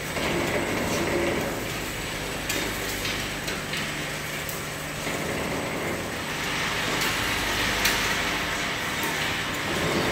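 Automatic bottle-labelling machine and conveyor running: a steady mechanical whirr with frequent light clicks and knocks from the mechanism and the plastic bottles, one sharper knock late on.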